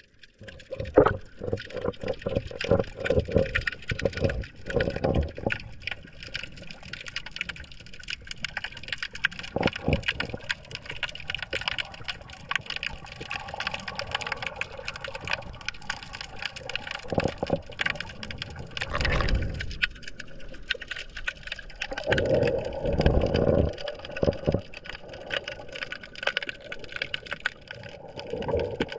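Water sloshing and gurgling around a GoPro camera hung in the water, with many small clicks and knocks throughout. There are louder rushing surges about 19 seconds in and again a little after 22 seconds in.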